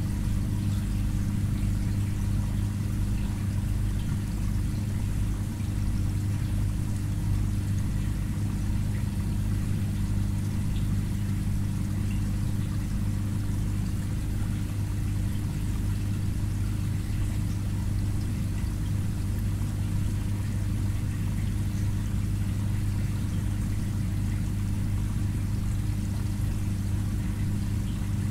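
Aquarium filter pump running: a steady low hum over a light hiss of moving water.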